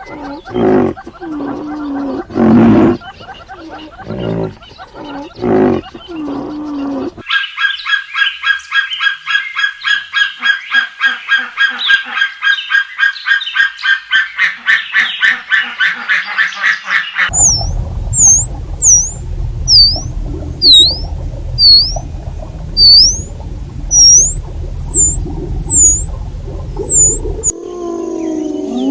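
A run of different animal calls. Low, deep pitched calls repeat about once a second, then give way to a fast, high pulsing trill, and then to high whistled notes that dip and rise, about one a second.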